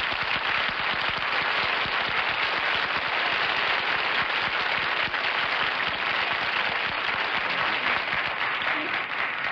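Studio audience applauding, a steady dense clapping that thins out near the end.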